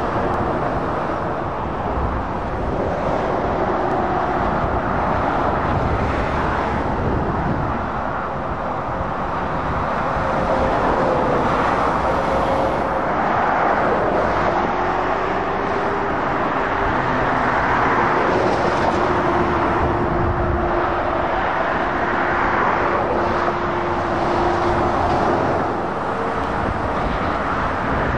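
Motorway traffic: lorries and cars passing continuously, with tyre noise and engine drone swelling and easing as each vehicle goes by.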